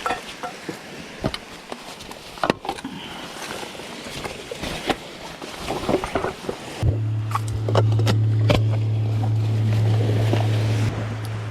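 Scattered handling clicks and knocks over a wash of waves, then about seven seconds in a motor starts suddenly and runs with a steady low hum.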